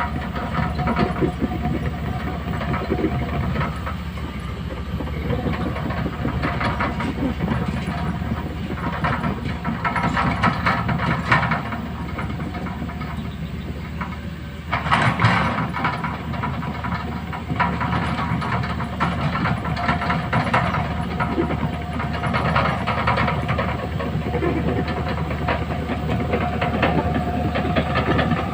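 Heavy diesel earthmoving machinery working: a steady engine din with hissing and irregular metallic clanks, dropping briefly and then surging louder about fifteen seconds in.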